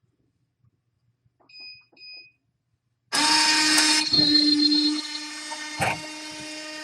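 Two short electronic beeps from the selection keypad, then the vending machine's spiral motor starts abruptly about three seconds in and runs with a steady mechanical whine. It is loud for the first second, then settles lower for the rest, with one sharp knock near the end. This is a vend cycle turning the product spiral.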